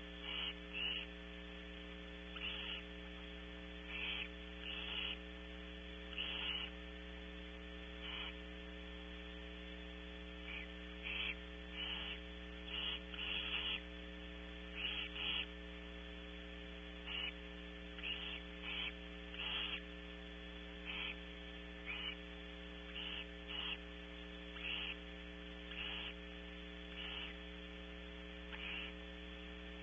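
Barn owls in a nest box giving short hissing begging calls, about one a second at an uneven pace, over a steady electrical hum from the camera's audio.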